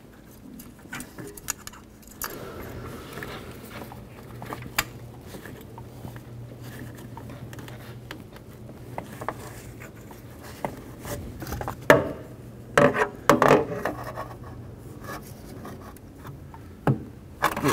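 Hand work on spark plug wires in the engine bay: rubbing, scraping and small clicks as the boots are worked onto the plugs, with a low steady hum through the middle. A sharp knock comes about twelve seconds in, followed by a short run of louder scrapes.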